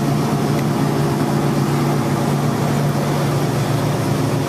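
Steady low mechanical hum, an even drone that does not change.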